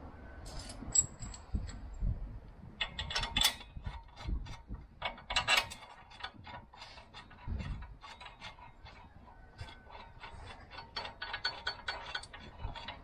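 Hand ratchet clicking in short runs, turning a socket on an extension to draw up the three bolts of a new front hub assembly, with light metal clinks between strokes. The clicks quicken into a steady run near the end.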